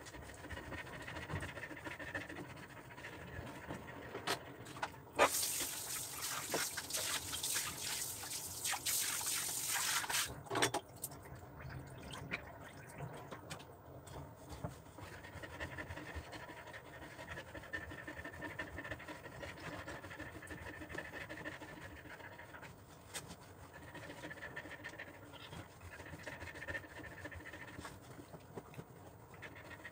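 German Shepherd-type dog panting as it is towel-dried. A louder hissing noise runs for about five seconds a few seconds in.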